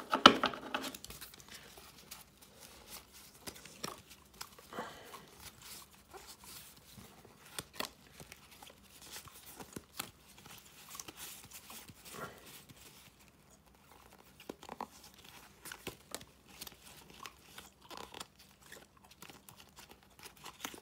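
Hockey trading cards and their pack wrappers being handled by hand: a louder rustle right at the start, then scattered soft crinkles, rustles and clicks as the cards are sorted and stacked.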